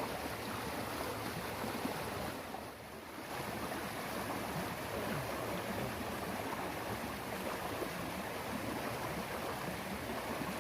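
Steady rush of flowing stream water, dipping briefly about three seconds in.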